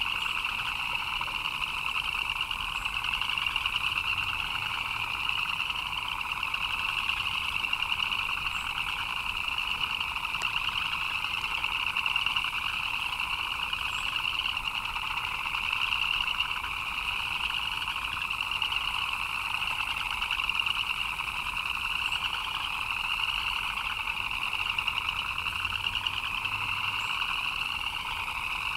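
Dense chorus of many frogs calling at once, their fast pulsing calls overlapping into a continuous shrill trilling at two pitches, one higher than the other.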